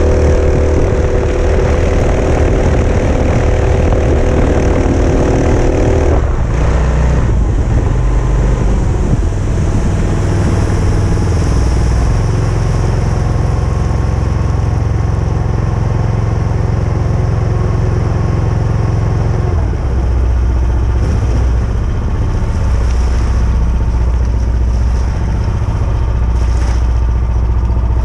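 Mokai motorized kayak's engine running under way through a prototype ES-kape 2.0 muffler. A higher-pitched part of the drone drops away about six seconds in, leaving a steady lower drone.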